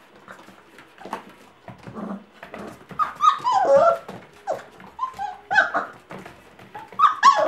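Five-week-old Gordon setter puppies at play: short high yelps and whines that bend up and down in pitch, loudest about halfway through and again near the end, over the scrabble of paws on a wooden floor.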